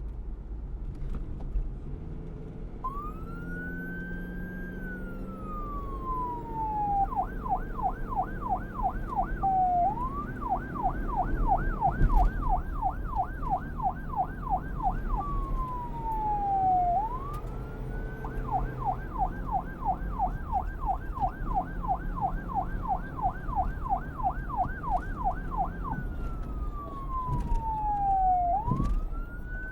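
Police car's electronic siren, starting a few seconds in and switching back and forth between a slow wail, one long rise and fall, and a fast yelp warbling about four times a second, over a low rumble.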